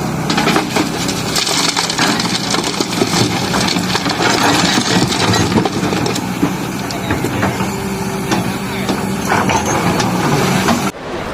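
Diesel engine of an excavator or dump truck running steadily, with crunching and clattering of sandstone and gravel being loaded. The sound drops briefly near the end.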